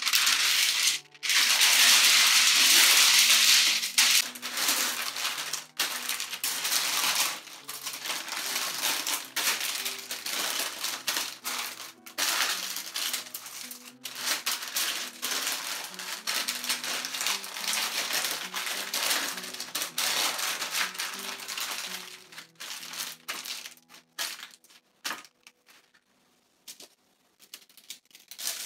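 Baking paper rustling and crinkling as it is folded and pressed around a leg of lamb, loudest in the first few seconds, thinning to scattered crackles and clicks near the end as the foil roll is handled. Soft background music plays underneath.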